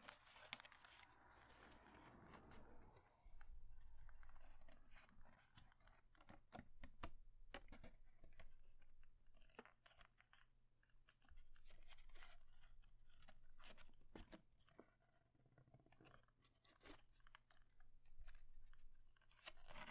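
Faint rustling and crinkling of a folded paper airplane being handled and unfolded by hand, with many short crisp crackles as its creases open.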